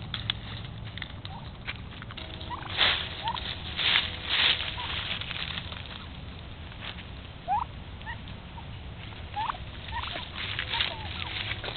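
Wild turkeys feeding, giving scattered short rising calls over rustling in dry leaves and grain as they scratch and peck. The rustling is loudest about three and four seconds in.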